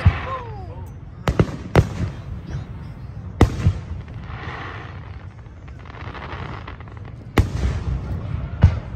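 Aerial firework shells bursting in a public display: about five sharp booms, two close together a little after a second in, with a low rolling rumble between them.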